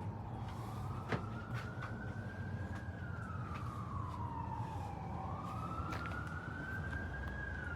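Emergency vehicle siren wailing, its pitch rising and falling slowly about every five seconds, over a steady low rumble, with one sharp click about a second in.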